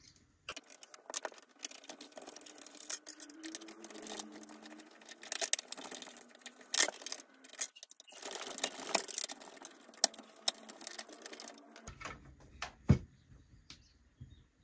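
Hand screwdriver backing small screws out of the plastic case of an APC Back-UPS 1400, with many sharp irregular clicks and rattles of the driver, screws and plastic parts, and a louder knock near the end.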